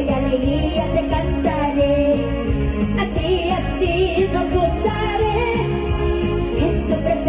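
Live evangelical praise music: a woman singing into a microphone over a band with a steady, even bass beat.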